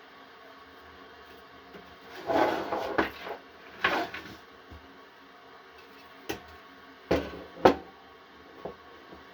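Hard parts being handled and set down, likely pieces of a PC power supply being worked on: a scraping clatter about two seconds in and again around four seconds, then a few single sharp knocks, the loudest near the end.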